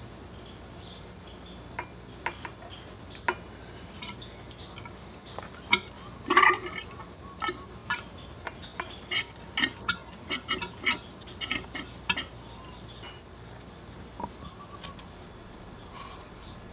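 Irregular clinks and taps of hand tools and metal parts being handled, about fifteen or twenty sharp strikes spread out, the loudest cluster about six seconds in.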